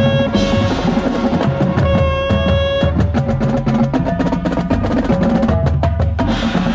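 Marching band playing: wind instruments holding notes over rapid drumline strikes, the drum hits thickest in the second half.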